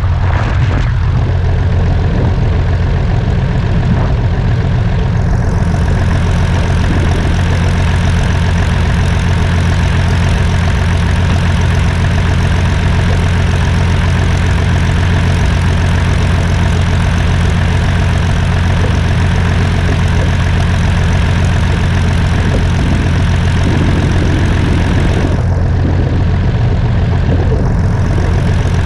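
Piston engine and propeller of a Fairchild PT-26 trainer running steadily at low power while taxiing.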